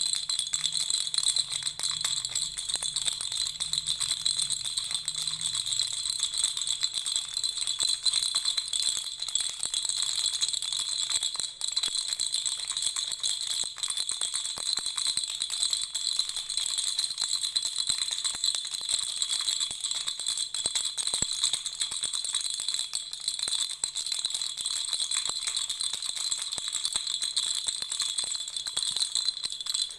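Lollipop-shaped baby rattle shaken without pause, a fast continuous rattling with a steady high jingling ring.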